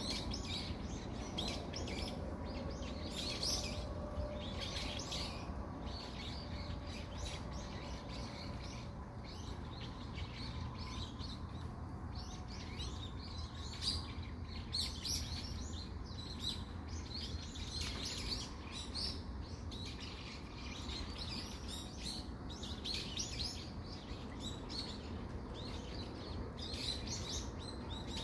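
Many small birds chirping and calling in trees, with short, rapid calls overlapping throughout, over a steady low background rumble.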